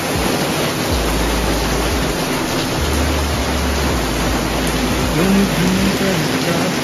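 Heavy monsoon downpour: a loud, steady hiss of rain, with a low rumble underneath for a few seconds from about one second in.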